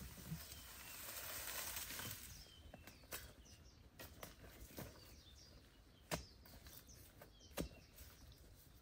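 Faint, scattered knocks, about five spread over several seconds, with a soft rustle for the first couple of seconds.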